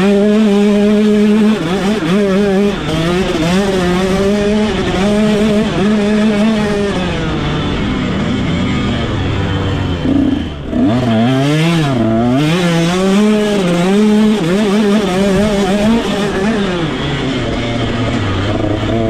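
2022 KTM 125 two-stroke motocross engine revving hard, its pitch rising and falling with the throttle and gear changes. About ten seconds in it briefly drops off the throttle, then winds up again.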